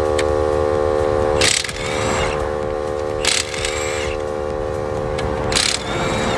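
Impact wrench hammering on a Volkswagen Jetta's 17 mm lug nuts with a steady buzz, loosening them for the tire change. Three sharp bursts break in, about two seconds apart.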